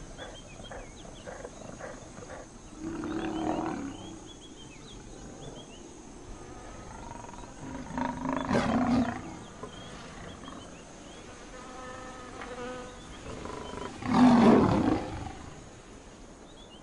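A lion calls three times, each call about a second long, the last the loudest. Insects chirp and buzz steadily under the calls.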